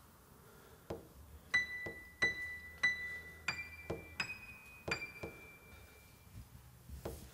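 Sparse high piano notes, one struck about every two-thirds of a second: the same note three times, then a few slightly higher ones, the last left ringing. Soft, slow footsteps on a staircase thud beneath them.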